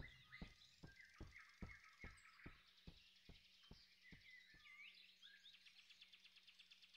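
Very faint woodland ambience with birds chirping, and a run of soft, evenly spaced taps, about two and a half a second, that fade away over the first five seconds.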